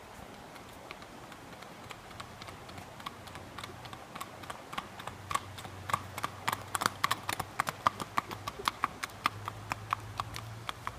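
Horse's hooves clip-clopping at a walk on an asphalt road. The steady beat of hoof strikes grows louder as the horse comes closer and passes, and is loudest in the second half.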